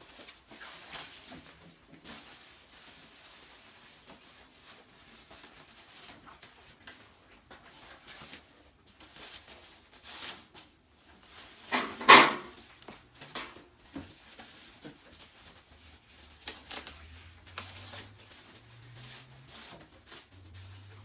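Handling noises as a fabric cover is fitted over an air-flow capture hood: scattered rustles and light knocks, with one loud sharp knock about halfway through.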